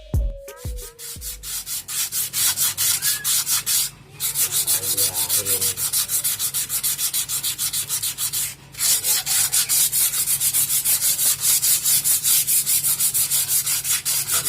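Brake shoe lining being hand-sanded with sandpaper in rapid back-and-forth strokes, with two short pauses, roughing up the friction surface so it grips.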